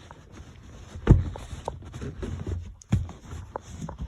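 Two dull thumps, the louder about a second in and another near the end, with lighter knocks and plastic clicks between. This is a car's rear side seat section being pushed into place until its retaining clip seats.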